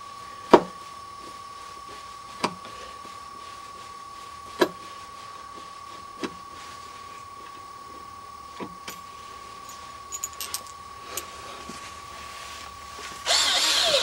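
Screwdriver working a screw in a deadbolt strike plate on a wooden door jamb: several sharp clicks and ticks a second or two apart. Near the end a cordless drill runs briefly and loudly.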